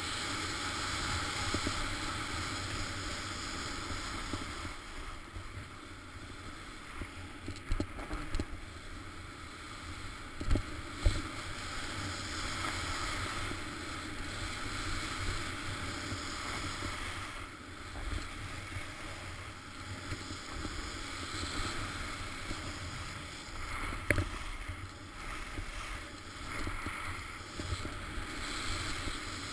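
Skis sliding and scraping over groomed snow on a fast downhill run, as a steady rushing hiss, with a few short knocks.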